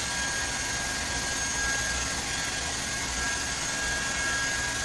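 Handheld hair dryer blowing steadily, an even rushing noise with a thin, steady whine in it.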